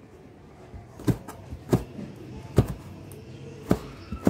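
Sharp clicks and knocks from a small child eating with a metal spoon close to the microphone, five in all, about a second apart.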